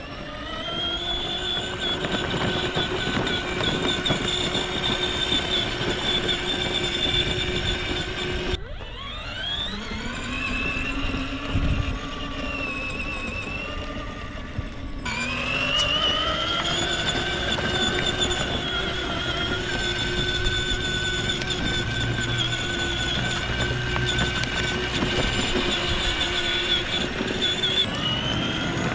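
Electric whine of a 24V kids' ride-on UTV's twin 200W motors and gearboxes as it drives. The pitch rises as it speeds up, three times (at the start, around 9 seconds and around 15 seconds), and holds steady in between.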